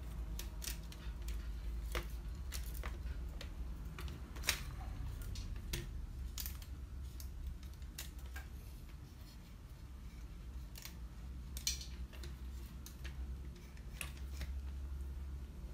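Scattered clicks and clacks of plastic and metal parts of a laser printer fuser assembly being handled and taken apart by hand, at uneven intervals over a low steady hum.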